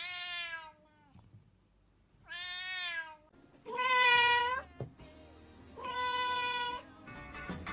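Domestic cat meowing four times, each meow under a second long, with short pauses between them.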